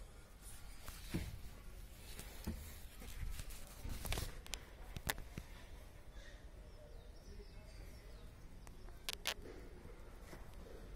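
Faint background noise broken by a few scattered short clicks and soft low knocks.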